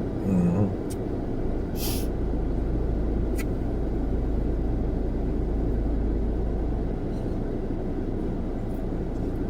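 Steady low rumble of a car's engine heard from inside the cabin, deeper and stronger for a few seconds in the middle, with a brief rustle about two seconds in.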